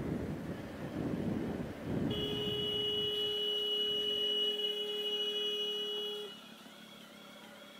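Motorcycle running with wind noise, then a horn sounded in one steady blast of about four seconds as a van pulls across in front, cutting off sharply.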